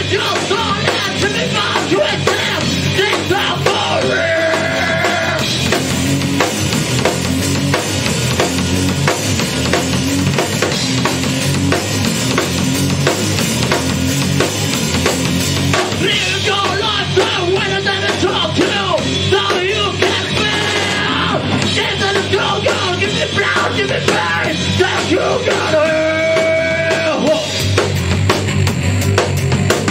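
A rock band playing live and loud: electric guitar and drum kit in a dense, steady wall of sound.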